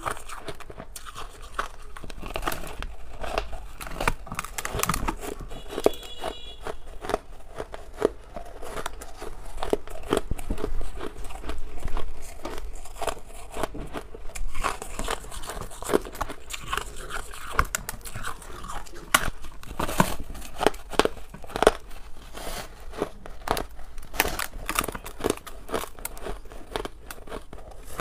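Frosty white ice being bitten and chewed: a dense, irregular run of crackling crunches.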